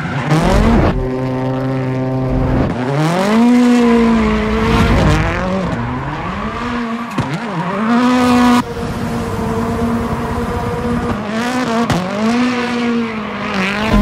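Ford Fiesta rally car's turbocharged four-cylinder engine revving hard up and down while it drifts in circles, with tyres squealing. The revs climb and drop several times, held steady at high revs for a couple of seconds near the start.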